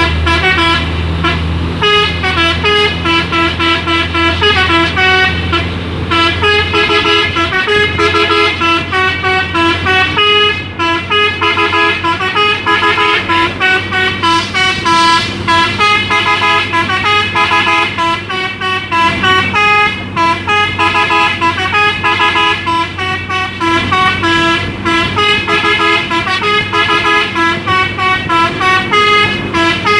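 Hino dump truck's telolet horn, a multi-tone air horn, playing a quick, unbroken tune of stepped notes. The truck's diesel engine runs low underneath, most plainly for the first several seconds.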